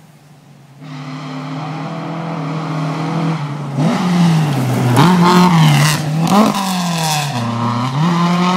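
Rally car engine on a gravel stage, coming in about a second in and growing louder as the car approaches. It then revs up and down through gear changes as it passes close by, with gravel crackling under the tyres.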